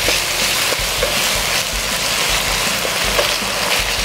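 Aromatics (lemongrass, lime leaves, garlic and chillies) sizzling and crackling steadily in hot oil in a wok while a spatula stirs them.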